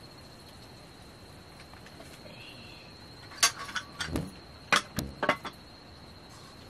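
A handful of sharp knocks and clatters of metal cooking pots and utensils being handled at a wood fire, starting about three and a half seconds in, over a faint steady high-pitched tone.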